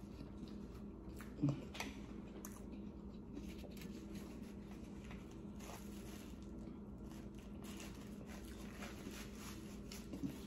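Faint rustling of a paper napkin wiping a face, with small scattered clicks over a steady low hum. A short low sound about one and a half seconds in.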